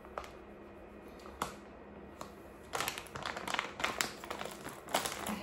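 Plastic sachet of glitter paint additive crinkling and rustling as it is handled and shaken out over the paint tub, the crackle starting about halfway through after a single light tick.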